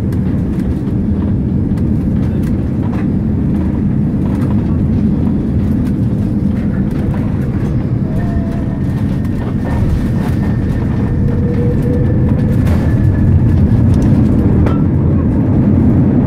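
Airbus A330 cabin noise on the landing rollout: a loud, steady low rumble from the engines and the wheels on the runway, growing a little louder near the end, with occasional light clicks.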